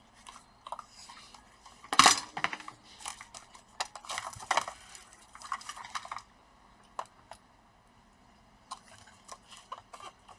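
Small hard clicks and clinks of hand tools and laptop parts being handled on a workbench, with a louder clatter about two seconds in, a busy run of clicks for a few seconds, then only scattered single clicks.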